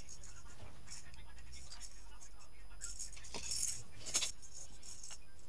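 Plastic baby toys and rattles clinking and rattling as they are handled, with a cluster of knocks and a sharp click a little after three seconds in.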